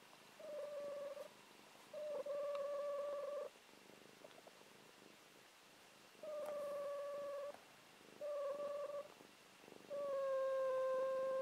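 Sleeping long-haired cat snoring with a steady, high-pitched whistling note, five times. Each note lasts about one to two and a half seconds, and the last is the longest and loudest.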